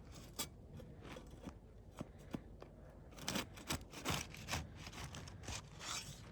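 Metal roofing scraper worked under asphalt shingle tabs to break their tar seal strips: irregular scraping and sharp ticks and crackles, busiest about halfway through.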